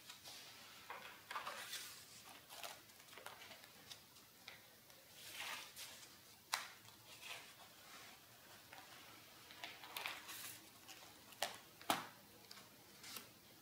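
Pages of a spiral-bound sketchbook being turned and smoothed by hand: soft paper rustles and swishes, with a few sharp ticks, the loudest twice near the end.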